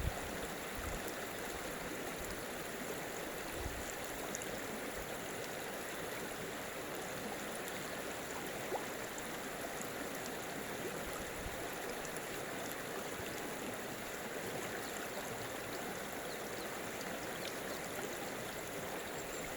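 Water of a stream flowing steadily, an even rushing sound with small scattered splashes.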